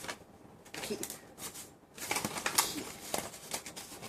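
Irregular small plastic clicks and short rustles as the protective tips are pulled off Paper Mate InkJoy retractable ballpoint pens and the pens are handled.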